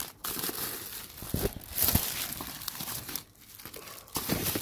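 Plastic wrapping crinkling and packaging rustling as items are handled by hand in a cardboard shipping box, irregular and crackly, with a short lull about three seconds in.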